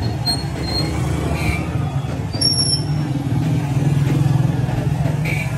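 Street traffic: a motor vehicle engine running close by, a steady low drone that swells about four seconds in, with a few brief high squeaks over it.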